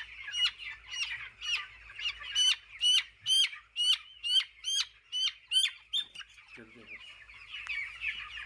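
Chicks peeping, with loud, rapid, high cheeps from nearby chicks at about three a second over a background of many more. The peeps thin out in the last couple of seconds.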